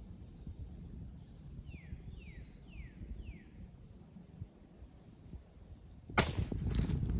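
Low wind rumble on the microphone, with a bird giving four quick, faint, downward-sliding chirps. About six seconds in, a sudden loud burst of noise, which carries on rough and uneven.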